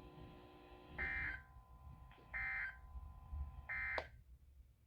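Emergency Alert System end-of-message code: three short bursts of SAME digital data tones, evenly spaced a little over a second apart, marking the end of a National Weather Service alert.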